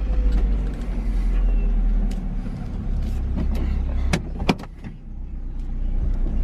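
A car engine running steadily, with scattered sharp clicks and knocks over it; the rumble dips briefly late on.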